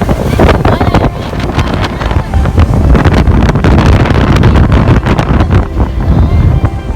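Wind buffeting the microphone over the steady rumble of a speedboat's engine, with irregular thumps and bangs, as on a fast run across open sea.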